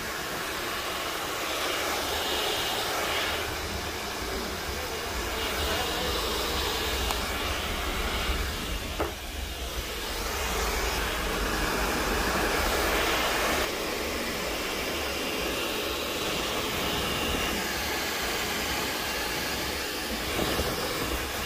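Handheld hair dryer blowing a steady rush of air onto a freshly dyed beard. Its level shifts as it is moved about, with a brief dip about nine seconds in.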